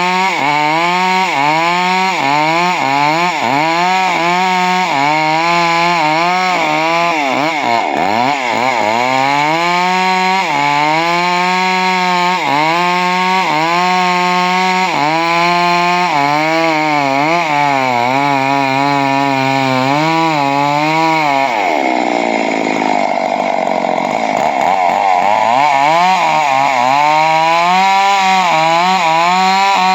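Stihl chainsaw running hard while cutting wood, its engine pitch rising and dipping over and over as the chain bites into the cut. About twenty-two seconds in the revs sag lower for a few seconds, then climb back.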